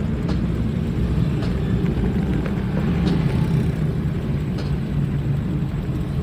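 Steady engine and road rumble of a moving public minibus, heard from inside the cabin, with a few faint ticks.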